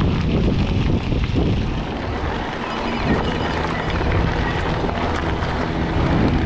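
Wind buffeting the microphone of a camera carried on a moving bicycle: a steady, fairly loud low rumble.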